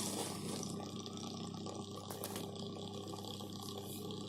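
Crescent electric steam vaporizer heating its water: a faint, steady watery bubbling over a low steady hum, with a couple of small ticks about halfway through, as it works up to making steam.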